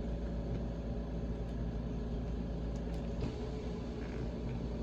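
A steady low hum with an even background hiss, and a few faint clicks.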